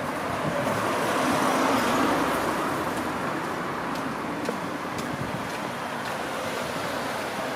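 A motor vehicle passing on a wet street, its tyre hiss and engine swelling to loudest about two seconds in, then fading into traffic noise.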